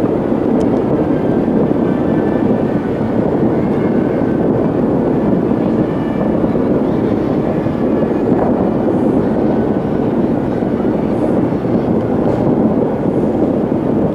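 Steady low rumble of a distant fireworks barrage, many shells bursting at once so that the separate bangs blur into one continuous roar.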